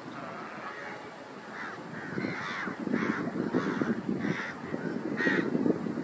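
Crows cawing, a series of short harsh caws about one every half second, over a low steady rush.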